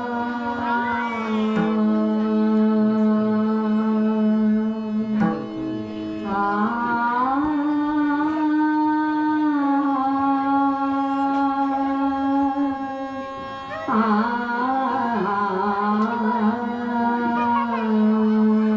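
Marathi devotional bhajan music: a melody of long held notes with ornamented turns between phrases, new phrases starting about five, seven and fourteen seconds in.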